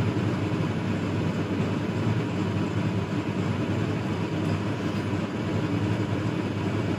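Steady rushing noise from a kitchen range hood fan running, even and unbroken.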